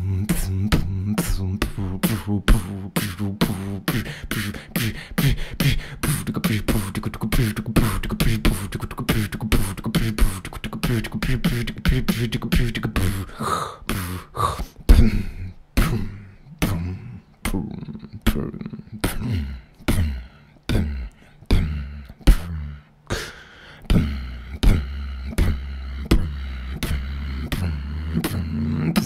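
A man beatboxing into a microphone: fast drum-like clicks and snares over a deep, sustained bass. About halfway through the pattern thins out, then settles into a slower, even beat of roughly two hits a second over a held bass.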